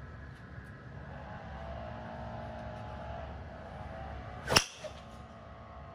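Golf club striking a ball off a driving-range hitting mat on a full swing: one sharp crack about four and a half seconds in.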